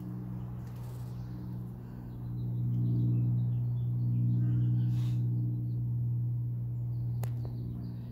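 A steady low machine hum, a little louder after about two seconds, with faint bird chirps now and then and a single click near the end.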